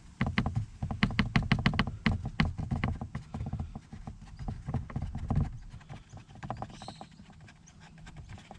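Loose plastic underbody cover on a Toyota Prius Gen 2 rattling as it is shaken by hand: a quick run of sharp plastic clicks and taps for about five seconds, then fainter, sparser taps. The cover has grown flimsy and loose, and this is the same rattle heard inside the cabin.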